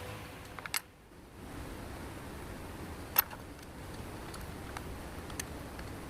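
A few sharp, isolated metallic clicks and taps of hand tools at work tightening bolts, the loudest about three seconds in, over a low steady background noise.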